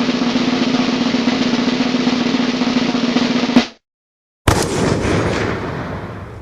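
Snare drum roll, a steady rattle that ends on a final hit a little before four seconds in. After a short silence, another sound effect starts abruptly and fades away.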